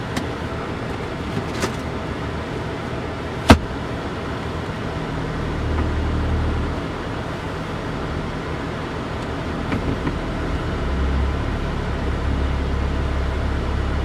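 Automatic gear lever of a 1998 Lexus GS300 being moved with a new brass shift knob, giving a few sharp clicks in the first four seconds, the loudest about three and a half seconds in. A steady low hum from the car underneath swells twice, about halfway and again near the end.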